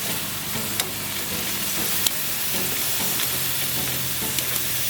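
Marinated beef short ribs sizzling on a hot grill: a steady hiss with a few sharp pops, two of them standing out about a second in and about two seconds in.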